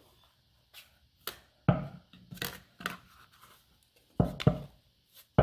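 Plastic dough scraper scraping sticky sourdough out of a glass mixing bowl in short, irregular strokes, with a few louder knocks of scraper and bowl.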